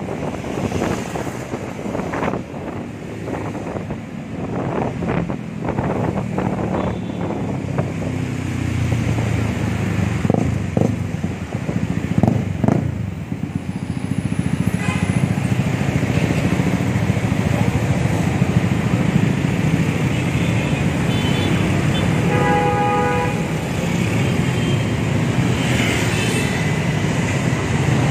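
Motorcycle riding through dense city traffic: the bike's engine runs steadily under the passenger among other motorbikes and cars. A vehicle horn toots briefly a few times in the second half, most clearly a little over halfway through.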